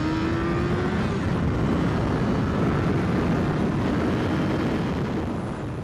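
Motorcycle engine pulling up through the revs, its pitch rising over the first second, under a steady rush of wind over the helmet camera's microphone. The sound eases down near the end.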